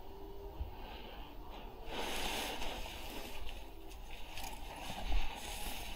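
Rustling and brushing of clothing, gear and grass as a player shifts position and moves into a trench, starting about two seconds in, with a few small clicks and a dull thump about five seconds in.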